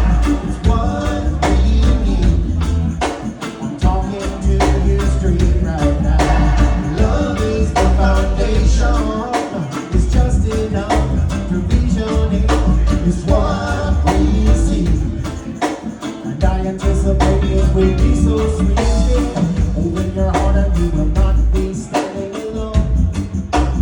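Reggae music with a singer over a heavy bass line and a steady drum beat. The bass drops out briefly a few times.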